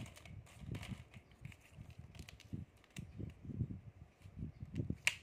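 Plastic toy pieces being handled on a tabletop: soft irregular knocks as curved plastic track sections and toy elephants are set down, with a few sharp plastic clicks, the loudest near the end.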